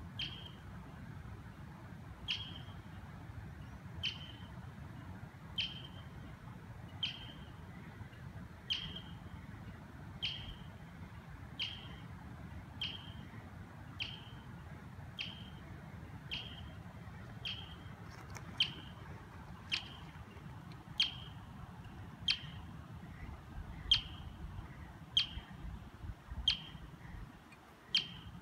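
Marmot giving its alarm call: a sharp, high chirp repeated about twenty times, every two seconds at first and faster and louder in the second half, as it keeps watch on a coyote.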